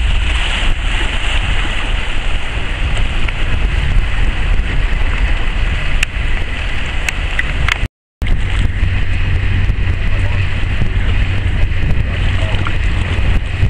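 Steady wind rumbling on the microphone over sea water washing around rocks, cutting out briefly about eight seconds in.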